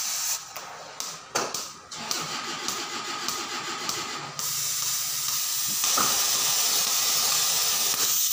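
Gas cutting torch hissing steadily as it cuts an excavator bucket bushing, growing louder about halfway through, with a couple of short knocks.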